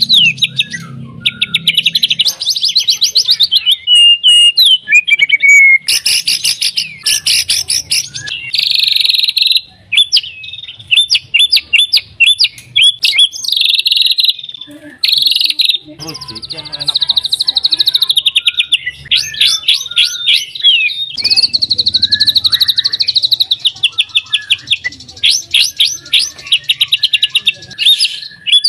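White-rumped shama (murai batu) singing a long, varied song. Fast trills and rattling runs of rapid repeated notes are mixed with sweeping whistled phrases, with only brief pauses.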